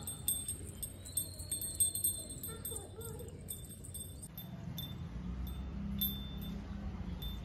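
Small handheld puja bell shaken, tinkling in quick, irregular strikes that thin out about halfway through. A low rumble comes in near the end.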